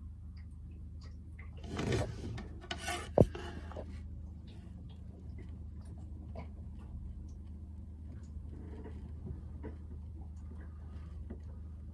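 Handling noise: rubbing and rustling about two seconds in, then one sharp knock about three seconds in, over a steady low hum, with faint scattered ticks after.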